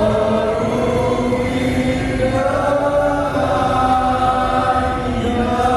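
Slow choral chanting: several voices sing together in long held notes, moving to a new pitch every second or two.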